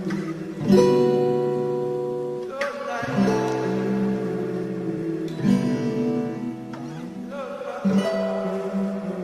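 Music: guitar strumming a chord about every two and a half seconds, each chord left to ring out.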